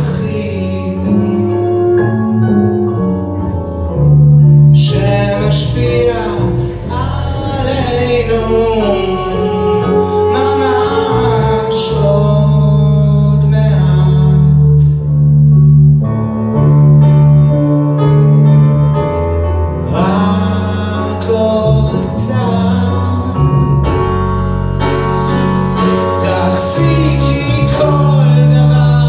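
Live ballad played by a small ensemble of grand piano, bowed cello and harp, with a voice singing over long held low cello notes.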